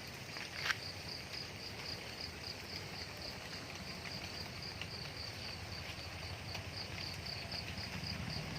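An insect chirping in a steady high-pitched rhythm, about five pulses a second, with a single sharp click about a second in and a low rumble growing near the end.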